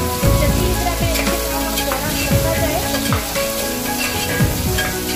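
Chopped onions frying and sizzling in an aluminium pressure cooker, stirred with a spatula.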